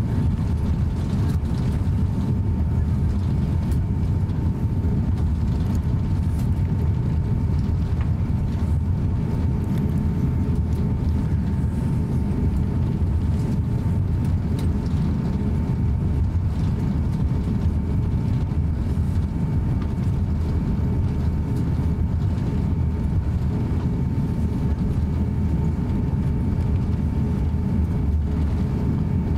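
Cabin noise of an Airbus A350-900 taxiing, heard from inside the cabin: a steady low rumble from its Rolls-Royce Trent XWB engines at taxi power, with a thin steady whine above it.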